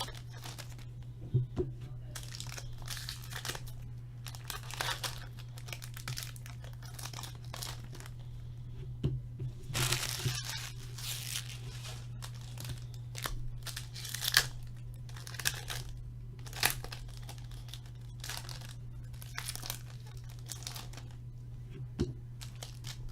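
Hockey card pack wrappers being torn open and crinkled by hand, in short irregular rips and rustles, over a steady low hum.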